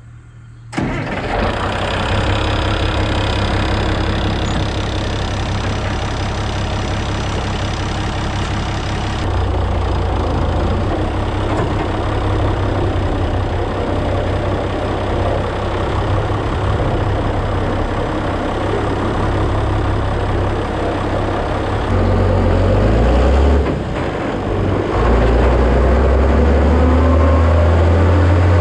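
Big farm tractor engine running steadily, its low drone stepping up or down a few times as it pulls a grain wagon.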